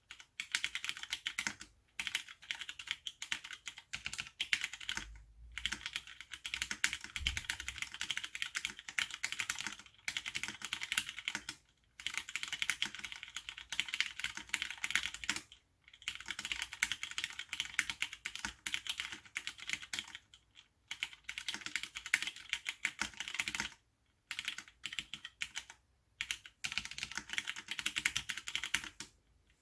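AR87 mechanical keyboard with Cherry MX Brown tactile switches being typed on in fast runs of rapid keystroke clicks, broken by short pauses every few seconds.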